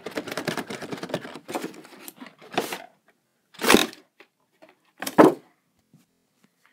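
Cardboard toy-box packaging being handled and pulled open: a stretch of dense crackling and rustling, then three louder separate rips or scrapes about a second apart.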